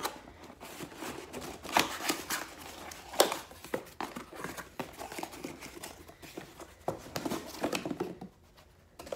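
Cardboard box being opened by hand: flaps pulled back and packing rustled and crinkled, with a few sharper tearing snaps, going quiet near the end.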